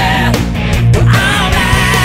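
Rock background music with guitar.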